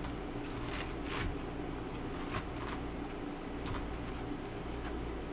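Close-miked eating sounds: a plastic fork picking and scraping food in a styrofoam takeout container, with chewing. It comes as a few short, scattered clicks and rustles.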